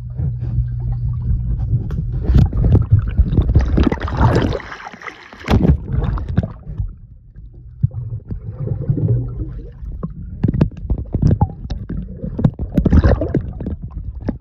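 Pool water churning and gurgling as heard by an underwater microphone, muffled and full of knocks and bubble clicks from a swimmer moving close by. A low steady hum comes and goes, near the start and again around eight to nine seconds in.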